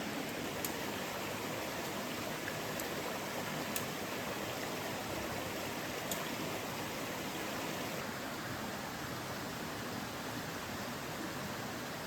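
Mountain stream flowing with a steady rushing sound, with a few faint sharp ticks now and then.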